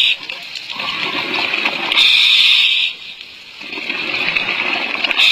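Scuba diver breathing through a regulator: a hiss on each inhale, about two seconds in and again at the end, with gurgling exhaust bubbles between breaths.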